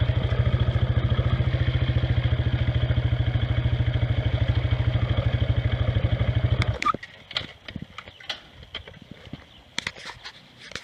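Gehl 5240 skid-steer loader's engine running steadily with an even pulsing beat, then shut off about seven seconds in. A few light clicks and knocks follow.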